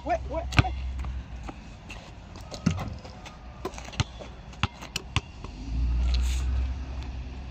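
A basketball bouncing on an asphalt court as it is dribbled: a handful of sharp, irregularly spaced bounces over a low rumble that swells near the end.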